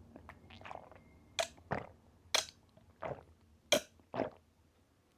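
Close-up eating sounds: about six short, wet mouth smacks and bites of chewing, spaced out over a few seconds.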